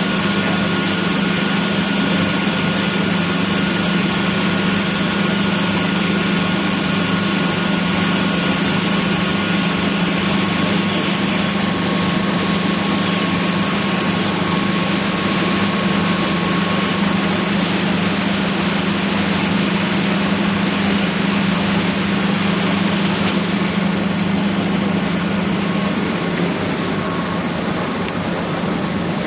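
A small boat engine running steadily at idle with a low hum and hiss. The low hum drops out near the end while the hiss continues.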